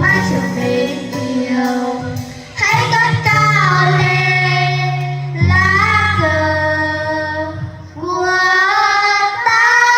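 A child singing a Vietnamese children's song over a musical backing track, in phrases of long held notes.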